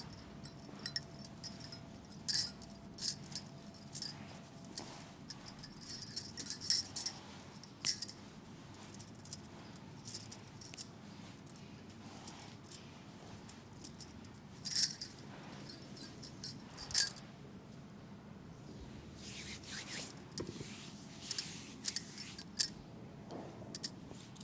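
Metallic jingling and clinking in irregular short bursts, like small bells or keys being shaken, with a few softer rubbing sounds near the end.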